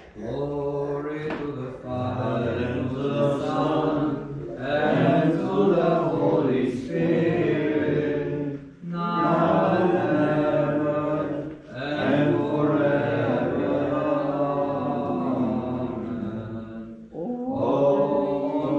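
Byzantine-rite liturgical chant: voices singing a hymn in long held phrases, broken by short pauses every few seconds.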